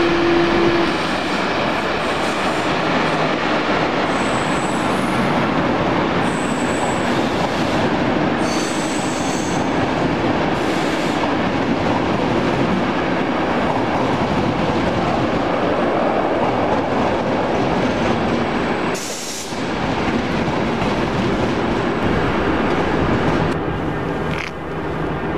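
A passenger train of ČD coaches rolling through a station, its wheels rumbling and clattering on the rails, with brief high-pitched wheel squeals a few seconds in.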